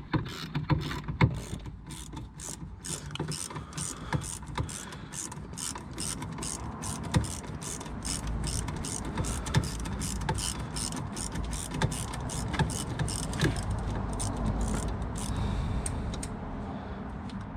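Socket ratchet clicking steadily, about three clicks a second, as it works the lower 7 mm hex (Allen) bolt of a rear brake caliper loose through an extension and universal joint. The clicking stops shortly before the end.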